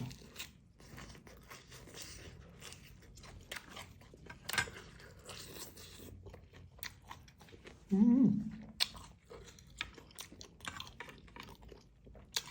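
A person chewing a mouthful of beef noodle soup with wet, smacking clicks, and a short voiced murmur about eight seconds in.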